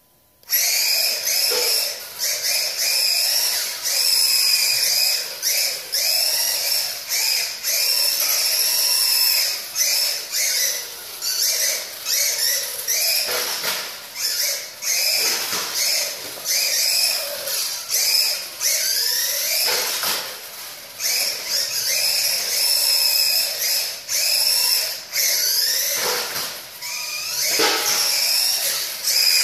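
Small stock brushed electric motor and gearbox of a Tamiya Grasshopper RC buggy, whining at high pitch as it drives. The pitch rises and falls again and again as the throttle is opened and let off, with short breaks between bursts.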